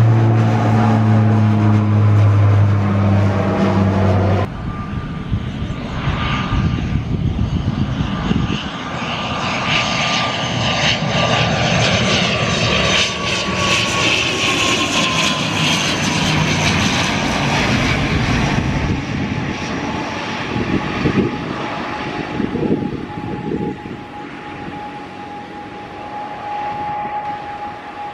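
A twin-turboprop military transport flies overhead with a loud, steady propeller drone for about the first four seconds, then cuts off abruptly. Next an ATR 72 twin turboprop passes overhead on landing approach: an engine-and-propeller roar with a high whine that slowly falls in pitch, fading as the aircraft settles onto the runway near the end.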